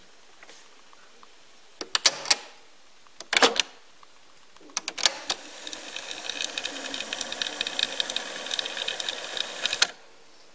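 Teac A-170 cassette deck's piano-key transport controls clicking and clunking in three short bursts, then the tape mechanism whirring steadily as it rewinds the cassette at high speed, stopping suddenly with a clunk about ten seconds in.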